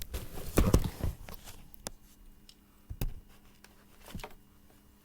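Handling noise: knocks and rustles of objects being moved about by hand, busiest in the first second and a half, then a few separate sharp clicks.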